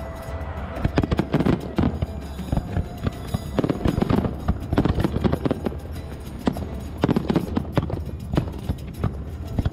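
Fireworks display: aerial shells bursting in many sharp bangs and pops in quick, irregular succession.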